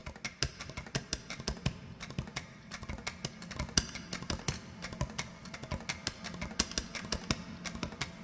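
Computer keyboard keys clicking in quick, irregular runs, several strokes a second, over quiet background music.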